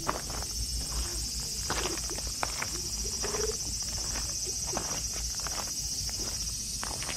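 Footsteps crunching irregularly on loose gravel as the walker moves along with the cat, over a steady high-pitched drone of insects.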